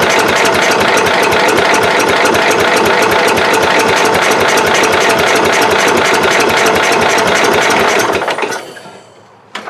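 Kohler K-series single-cylinder engine being cranked over by its electric starter, turning over at an even pace without firing, then stopping a little past eight seconds in. It will not catch because the spark is really weak.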